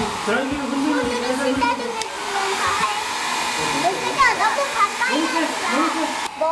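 Small handheld hair dryer running steadily, blowing warm air at close range on a freshly bathed guinea pig.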